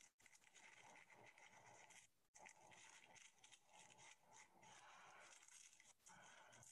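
Near silence: a faint, even hiss.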